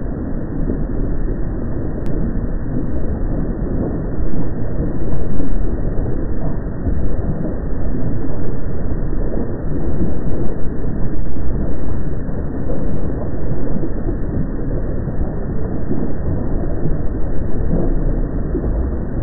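Deep, continuous rumbling noise from a recording at an active volcano, swelling and easing irregularly, with most of its weight in the low range.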